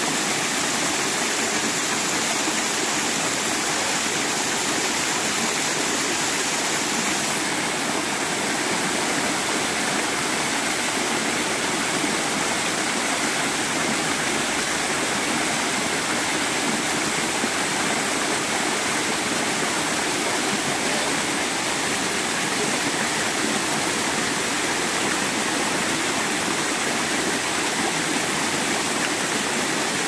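Small waterfall cascading over boulders: a steady rush of water.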